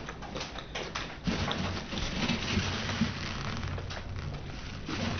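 Close-miked chewing and mouth sounds of someone eating sushi, a dense wet crackle over a low rumble from about a second in.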